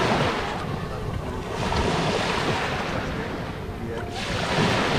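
Shallow sea water washing and splashing at the shoreline, with wind buffeting the microphone. The rushing noise swells at the start and again near the end.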